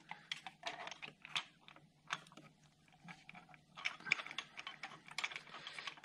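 Irregular light clicking and tapping of a spark plug socket and extension, holding a new spark plug, as they are handled and fitted into the spark plug hole. The clicks come in two runs with a short gap after about two seconds.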